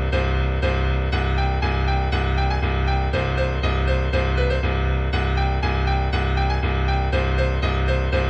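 Background music: a keyboard plays evenly repeated notes, about three a second, over a steady low drone.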